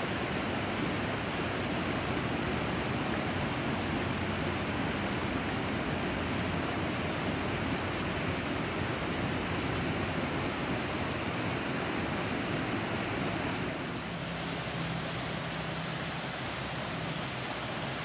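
Mountain creek rushing over rocks: a steady rush of running water, mixed with wind on the microphone. The low rumble eases a little about three-quarters of the way through.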